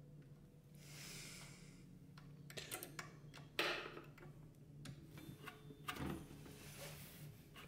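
Faint clicks and knocks of an Allen key and hands working the adjustment screw on an electric scooter's mechanical disc brake caliper, with a louder knock about three and a half seconds in. Near the end the front wheel is spun by hand and turns with a soft whir and no scraping: the brake pads are clear of the rotor.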